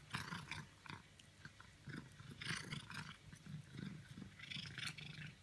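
Cat chewing and crunching small bits of food off the floor in irregular bursts, with a low rumble underneath.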